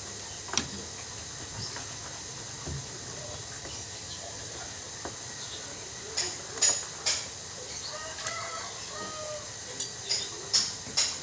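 Sharp metallic clinks and knocks of hand tools on washing machine parts, bunched about six seconds in and again near the end, with a chicken clucking in between.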